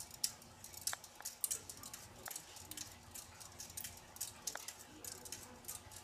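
Hunter Silent Breeze ceiling fan running with its light on: a faint steady motor hum with light, irregular ticks and clicks scattered through it, several a second.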